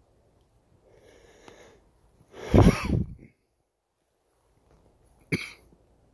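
A person close to the microphone coughs loudly about two and a half seconds in, after a short breathy intake, then gives a second short, sharp cough near the end.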